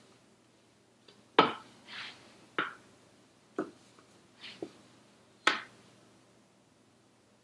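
A spatula scraping and knocking against a stainless steel mixing bowl as the last of the batter is scraped out into loaf pans: a string of about eight short, sharp knocks and scrapes, the loudest about a second and a half in and another strong one near the end.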